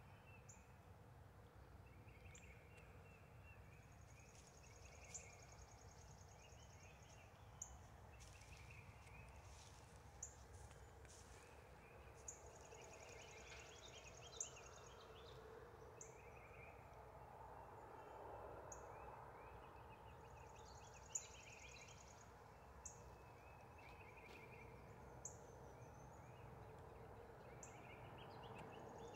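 Faint woodland ambience: a thin, high trill that comes back about every seven seconds, with soft chirps between and a handful of short, sharp ticks scattered through.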